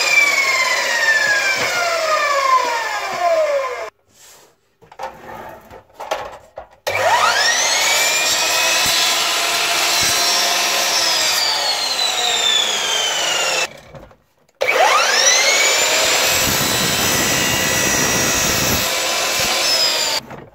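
Peugeot sliding mitre saw: the motor winds down with a falling whine, then twice starts up with a quickly rising whine and runs at full speed. During the second run the blade cuts through a thin board for a few seconds, adding a rough rasping noise under the whine. Each run breaks off abruptly.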